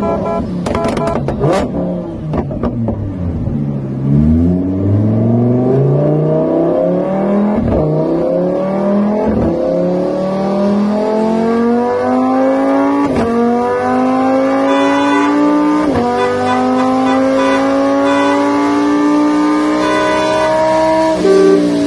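A car engine sound accelerating: its pitch dips in the first few seconds, then rises slowly and steadily to the end, with a few short knocks along the way.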